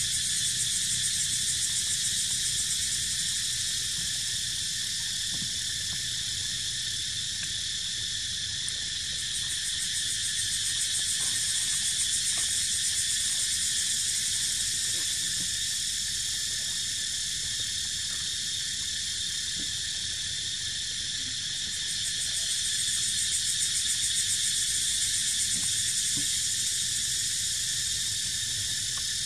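A dense, high-pitched chorus of insects droning without a break, swelling louder twice in long slow waves.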